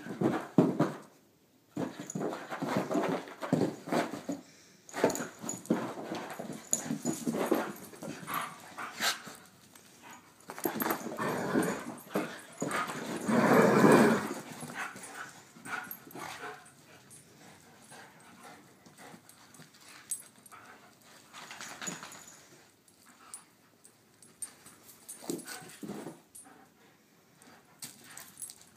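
A greyhound playing rough with a plush toy on carpet: busy scuffling, paw thumps and toy-shaking noises mixed with the dog's own play sounds, loudest about halfway through, then quieter and sparser.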